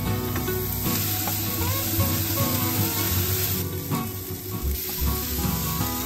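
Mushrooms sautéing in oil in a frying pan on an induction hob, sizzling steadily; the sizzle dips briefly just after halfway.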